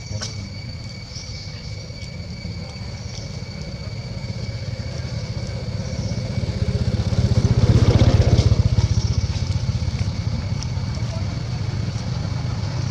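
A motor vehicle engine running in the background, growing louder to a peak about eight seconds in and then holding steady, with a steady high-pitched tone underneath.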